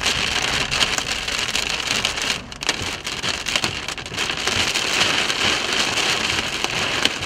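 Rain drumming on a vehicle's windows and body, heard inside the cabin as a dense, steady patter of drops.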